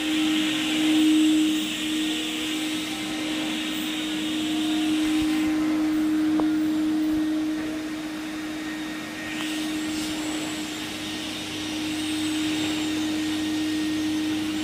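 Canister wet-dry vacuum and rotary single-disc floor scrubber running together on carpet: a steady motor hum under the hiss of the vacuum's suction, which fades for a few seconds midway and comes back.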